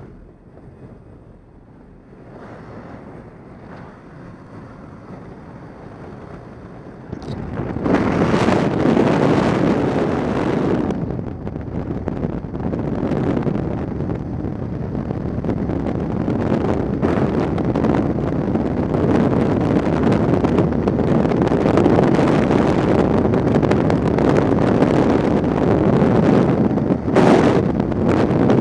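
Aircraft noise at the open jump door, fairly subdued at first. About seven seconds in, a sudden loud, steady rush of freefall wind buffets the helmet-mounted camera's microphone.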